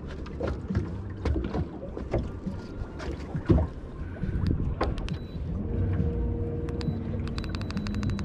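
Small fiberglass skiff on the water: low rumble with wind and scattered knocks and taps against the hull. About six seconds in, a steady whine starts as the bow-mounted Minn Kota electric trolling motor runs. Near the end comes a fast, even run of clicks.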